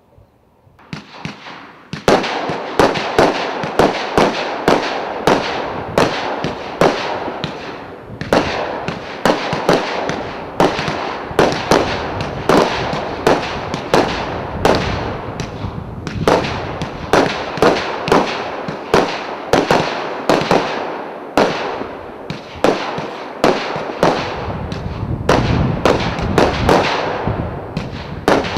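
Fantazia 'Z Wars' 100-shot firework cake firing: after a short rising hiss, the shots start about two seconds in and keep coming at about two to three a second, each a sharp bang with a noisy hiss between them.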